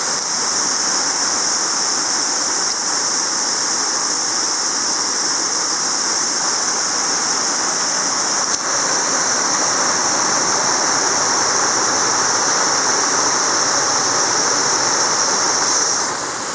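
Waterfall rushing steadily, with a loud, steady high-pitched hiss over it that shifts slightly about halfway through and stops shortly before the end.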